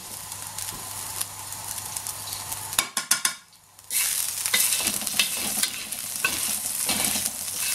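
Oil sizzling in a hot wok over a gas flame, with a metal spatula scraping and stirring around the pan. The sound drops away briefly about three seconds in, then the sizzle comes back louder.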